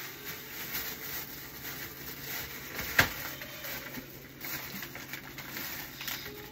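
Quiet room noise with faint rustling and a low steady hum, broken by a single sharp click about three seconds in.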